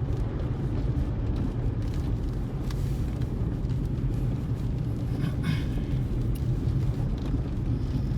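Steady low rumble of a car's engine and road noise heard from inside the cabin while driving slowly. A brief higher-pitched sound cuts in about five seconds in.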